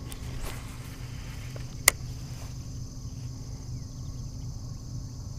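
Steady high-pitched chorus of insects over a steady low rumble, with a single sharp click about two seconds in.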